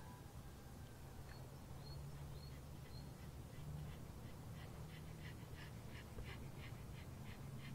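Pug panting rapidly, about three to four short breaths a second, faint at first and growing stronger after about four seconds. A few faint high chirps sound early on.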